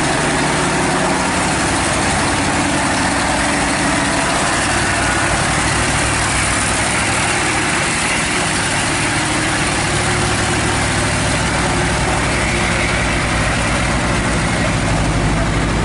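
Heavy diesel engine running steadily under a constant hiss.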